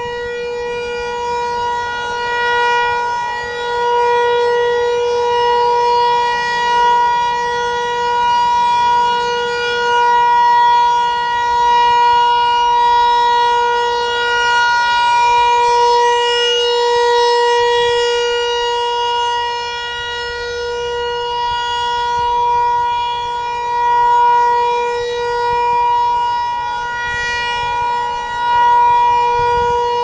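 Federal Signal 508-128 rotating electromechanical outdoor warning siren sounding a steady alert tone at a constant pitch. The tone swells and fades every few seconds as the rotating horn sweeps past.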